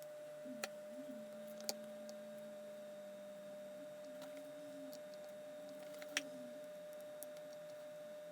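Faint steady electrical hum, one even tone with a weaker wavering tone below it, and three light clicks: one near the start, one about two seconds in and one near the end.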